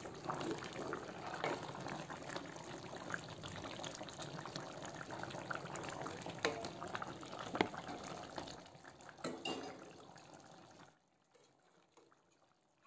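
Chicken pieces in their onion sauce stirred in a stainless steel pot: wet sloshing and bubbling of the liquid, with a few sharp knocks of a utensil against the pot. The sound drops away about eleven seconds in.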